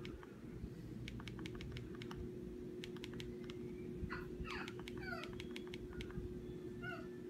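Irregular clicking of remote-control buttons being pressed, several quick clicks in clusters. A few short squeaky chirps come about four to five seconds in, over a steady low hum.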